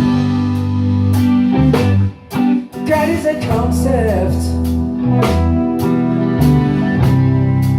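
Band playing a slow song on guitar, bass and drums, with steady drum hits under held chords and a wavering melody line about halfway through.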